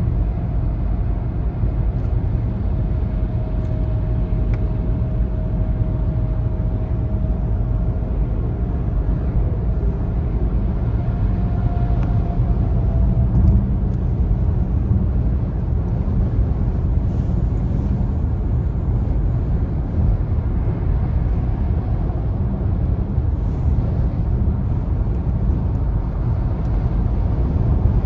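Steady road and tyre noise with engine drone, heard from inside a car's cabin while cruising on a motorway. A faint steady whine sits over it in the first half and fades out about halfway through.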